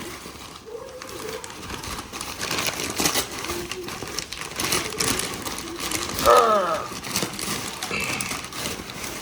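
Handling noises: scattered clicks, taps and rustling. About six seconds in there is one brief falling tone.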